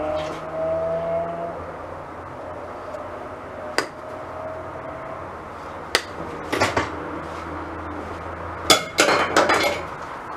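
Sharp metallic clanks and knocks from hand tools working on a school bus's sheet-metal ceiling and its fixtures: single knocks spread out at first, then a quick cluster of them near the end.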